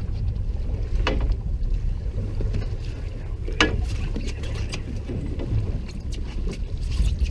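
Steady low wind rumble on the microphone, with two short sharp knocks, one about a second in and another about three and a half seconds in.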